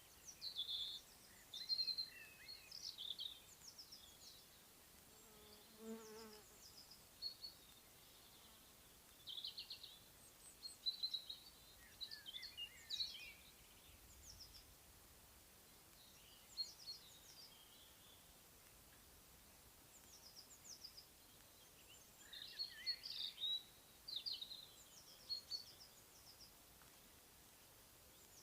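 Songbirds singing in short, repeated chirping phrases, with a bee buzzing past briefly about six seconds in.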